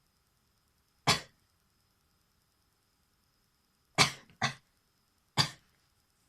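A person's short, sharp bursts of breath, like coughs or half-sneezes, from someone trying to make themself sneeze: one about a second in, a quick pair about four seconds in, and another a second later.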